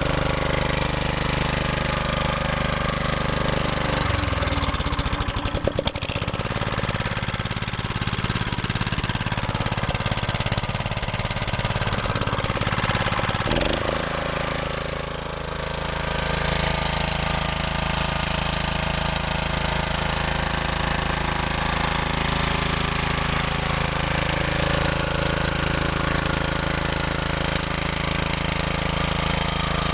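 Honda GX240 single-cylinder four-stroke engine running steadily. Its speed shifts about four to six seconds in and again about halfway, then holds steady.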